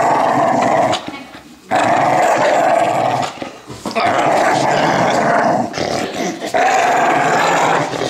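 Pit bull growling in play while tugging at a stuffed toy: four loud growls of a second or two each, with short breaks between them.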